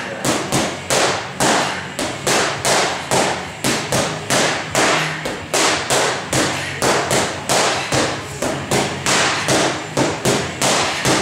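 Boxing gloves punching focus mitts: a fast, steady run of sharp smacks, about two and a half a second.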